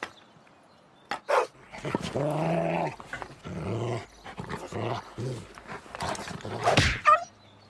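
Large shaggy black dog growling, then barking in short woofs about twice a second, with a louder sharp cry near the end.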